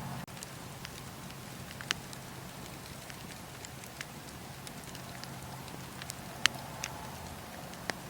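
Wood fire crackling in a fireplace: a steady hiss with scattered sharp pops, the loudest about six and a half seconds in.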